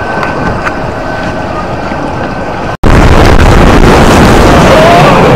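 A steady rumble with a thin steady tone and a few clicks. After a sudden cut nearly three seconds in, loud wind buffets the microphone of a camera riding a fast amusement-park ride.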